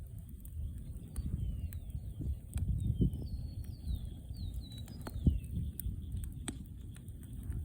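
Campfire crackling, with many sharp pops and snaps over a low steady rumble. Small birds chirp in short falling notes in the background for the first few seconds.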